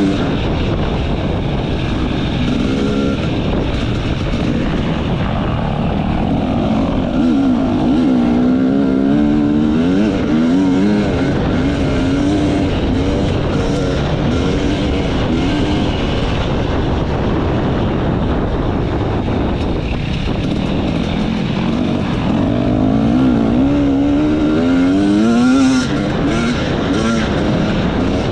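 Off-road enduro motorcycle engine running hard, its pitch rising and falling again and again as the throttle is opened and closed, with a sharp rev-up and drop near the end.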